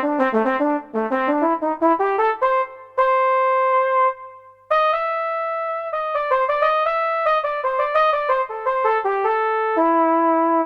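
Saxophone playing a melodic phrase: quick runs of short notes, a long held note about three seconds in, a brief break, then another run of notes ending on a held note near the end.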